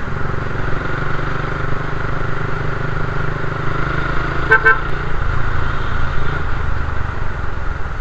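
Suzuki Raider 150 carb motorcycle's single-cylinder engine running steadily while riding in traffic. A vehicle horn beeps twice in quick succession about four and a half seconds in.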